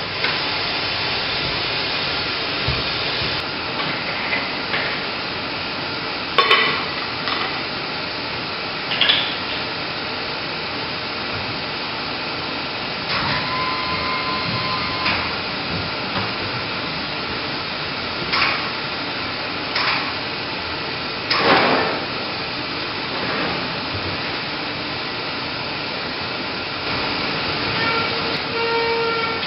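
Steady hiss of machinery or ventilation in a film projection booth, with scattered knocks and clacks as the projector's film-path parts and the film platter are handled by hand. There is a brief squeak midway through.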